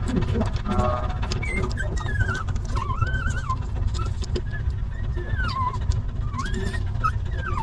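Newborn puppies whining and squealing in a string of thin, high cries that rise and fall, with handling rustles and clicks over a steady low rumble.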